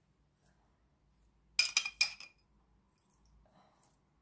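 A metal spoon clinking against glass three times in quick succession, about a second and a half in.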